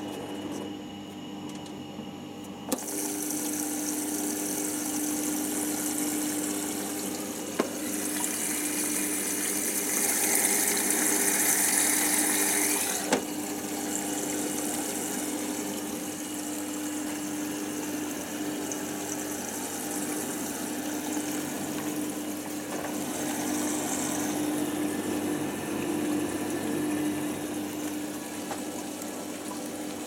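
Hoover Nextra HNF6127 washing machine filling with water: a click about three seconds in, then a steady rush of water through the dispenser with a low hum. The rush grows louder for a few seconds and drops back after another click.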